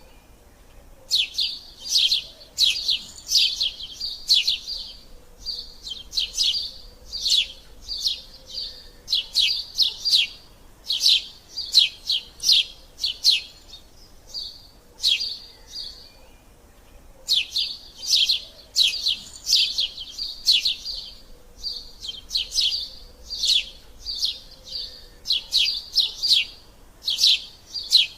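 Eurasian tree sparrows squabbling, giving fast runs of sharp, falling chirps several times a second, with a couple of brief pauses about halfway through.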